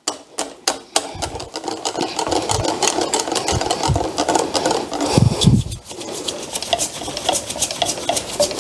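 Wire balloon whisk beating a thick gram-flour (besan) batter in a glass bowl: a fast, steady clicking and slapping of the wires against the glass and through the batter.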